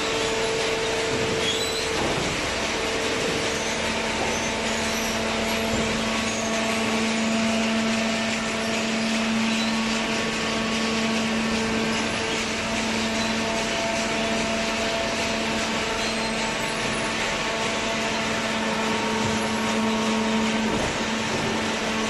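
Hydraulic horizontal waste-paper baler running: a steady hum from its pump and motor over a constant machine noise.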